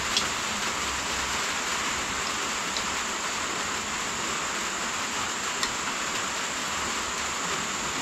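Steady rain, with a few light clinks of a ladle and spoons against pots and bowls.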